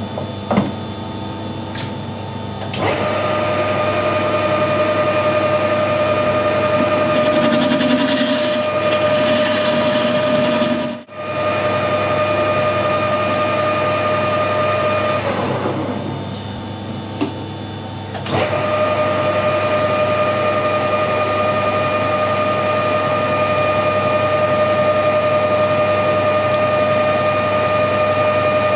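Metal lathe running: a steady gear whine over the motor hum as the spindle turns. The whine drops out for a few seconds past the middle and then returns.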